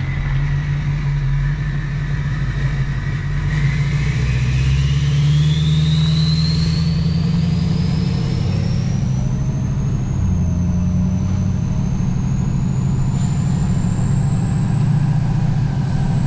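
LBZ Duramax 6.6-litre V8 turbo-diesel accelerating, heard from inside the cab, running with only a downpipe and no exhaust. The rebuilt turbo, upgraded to a 68 mm compressor wheel and 10-blade turbine, whistles as it spools, rising steadily in pitch from a few seconds in to a high whine near the end.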